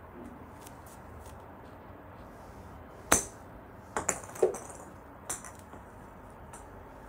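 A golf wedge strikes a hollow plastic practice ball off an artificial-turf mat with a sharp click about three seconds in. Several lighter clacks and knocks follow about a second later, one with a short hollow ring, and another comes about two seconds after the strike, as plastic balls land and bounce.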